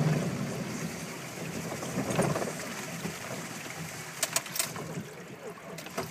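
Flood water sloshing and rushing around a Frontera 4x4 as it wades through, heard from inside the cabin. The sound fades over the first second or so into a steadier hiss, with a few sharp clicks about four seconds in.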